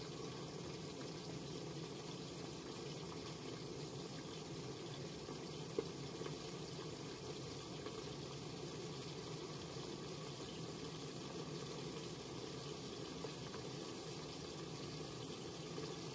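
Steady rushing noise of a burner with food cooking on it, and one short click about six seconds in.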